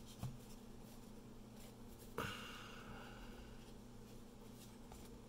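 Faint handling of a stack of trading cards by hand: a light tap near the start and a short sliding swish of card against card about two seconds in, over a low steady hum.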